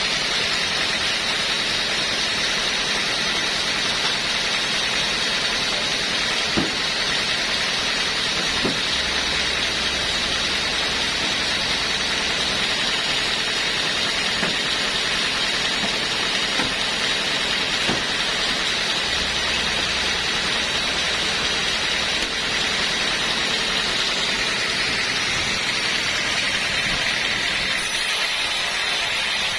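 Sawmill machinery running steadily: a constant mechanical noise with a steady high whine, and a few faint knocks.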